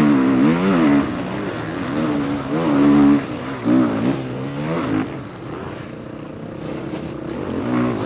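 Motocross bike engine heard close from the onboard camera, revving up and down as the rider blips the throttle through deep mud ruts. It is loudest in the first few seconds, eases off about five seconds in and picks up again near the end.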